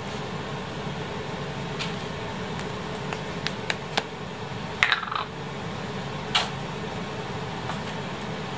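Sauce squirted from a squeeze bottle in a short sputtering burst about five seconds in, after a few light clicks and taps as the bottle and toast are handled, over a steady fan-like hum.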